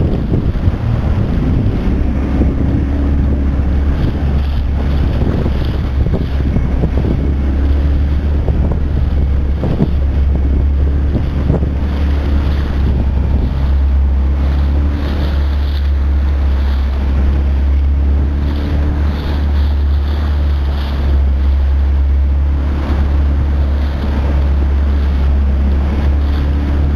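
Johnson 40 outboard motor running steadily, driving a small dory through choppy sea, with heavy wind buffeting the microphone and water splashing against the hull.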